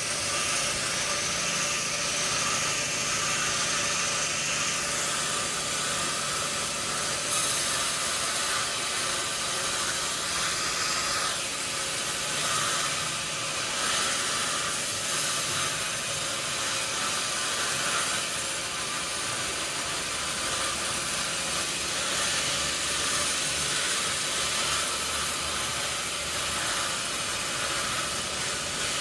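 Sawmill machinery running steadily: an engine or motor hum under a constant high-pitched hiss.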